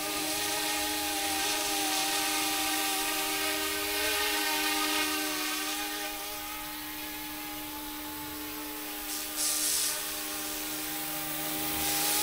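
Electric motor and gears of a radio-controlled AH-64 Apache scale helicopter running with a steady whine whose pitch wavers slightly, with a short burst of hiss about nine seconds in.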